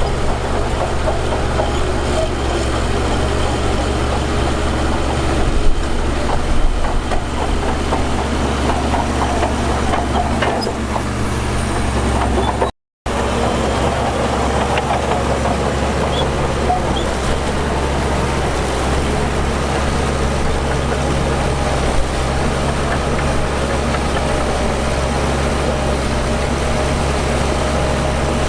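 Heavy diesel earthmoving machinery running steadily at work, a low engine drone with rumble and rattle over it. The sound drops out completely for a split second about halfway through.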